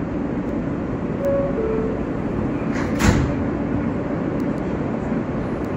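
R143 subway car's two-note door chime, a higher tone then a lower one, followed about two seconds later by the sliding doors shutting with a sharp thud, over the steady hum and noise inside the car.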